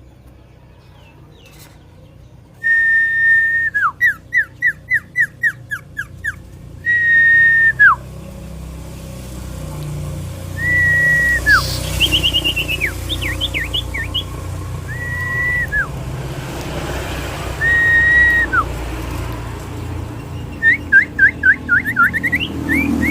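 Common iora (cipoh) singing: long, steady whistled notes that each end in a sharp downward slur, alternating with quick runs of short descending whistles. The song starts a few seconds in and comes in repeated phrases, over a low background rumble.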